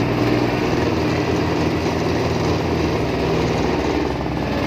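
Single-cylinder diesel engine of an e-taek, a Thai farm truck, running steadily with an even, rapid beat.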